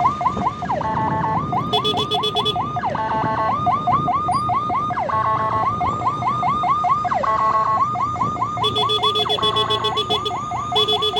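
Electronic emergency siren switching between modes: a fast yelp sweeping up and down about four times a second, broken twice by stretches of a rapid pulsing tone, over low traffic and engine noise.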